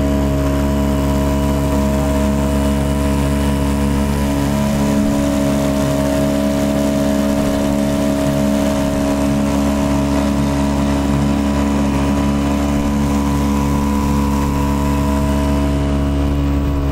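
Small two-stroke outboard motor running steadily at a constant cruising speed.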